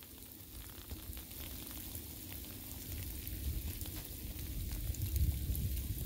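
Light rain and sleet pattering, a steady fizzing hiss full of tiny ticks. A low rumble on the microphone grows louder near the end.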